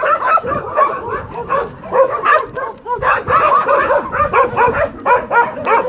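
Several dogs whining and yipping in a steady overlapping run of short high calls, with the odd bark, the excited whine of dogs greeting a visitor.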